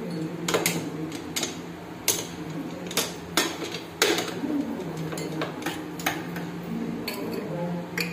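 Metal parts of a hand-operated sandhagai press clinking and knocking together as the press is handled. About a dozen irregular, sharp metallic knocks, the loudest about two seconds and four seconds in.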